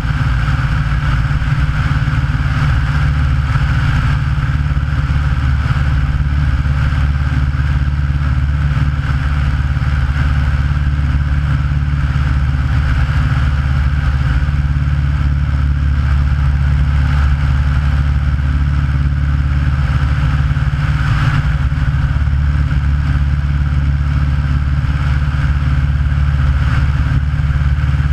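Aeronca light aircraft's piston engine and propeller running steadily in level cruise, heard from a camera mounted outside the fuselage.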